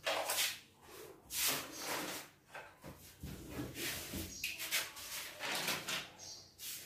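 Irregular rubbing and scraping handling noises, a series of short strokes with gaps between them.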